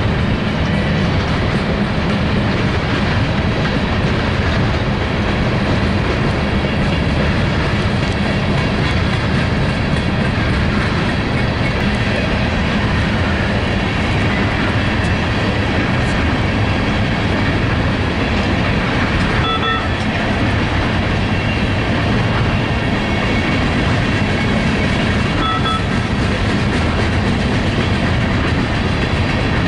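Empty coal hopper cars of a freight train rolling steadily past on steel wheels and rail, a loud, even rolling noise, with two brief high squeaks, one about two-thirds of the way through and one near the end.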